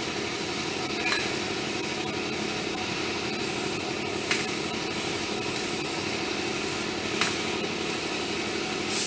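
Airbrush spraying paint in short bursts, its high air hiss stopping and starting over a steady rougher running noise, with three faint clicks. The hiss swells louder near the end.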